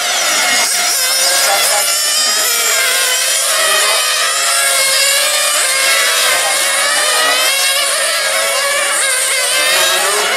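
Several 1/8-scale RC racing cars' small nitro engines running at high revs together, each one's pitch rising and falling as the cars accelerate and slow through the corners.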